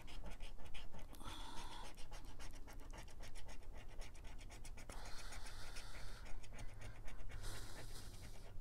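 A yellow plastic scratcher tool scraping the coating off a scratch-off lottery ticket in rapid back-and-forth strokes, with a few harder spells of scratching.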